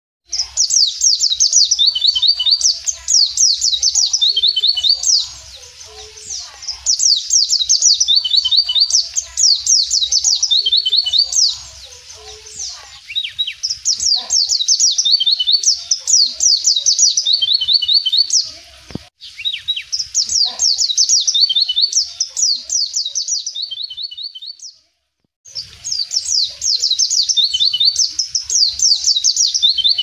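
A white-eye (pleci) singing: long, loud bursts of rapid, high twittering trills, broken by short pauses.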